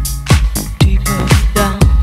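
Dance-pop background music with a steady kick drum about twice a second and a bass line.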